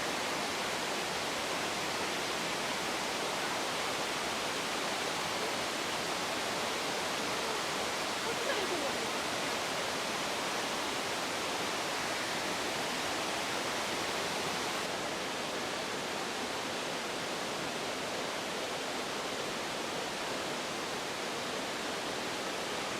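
Hagoromo Falls rushing: a steady, unbroken noise of falling water.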